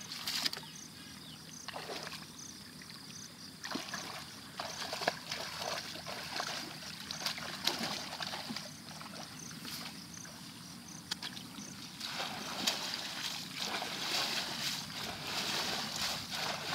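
Shallow water splashing and sloshing in irregular bursts as people wade through floodwater and sweep woven bamboo scoop baskets through it to catch fish.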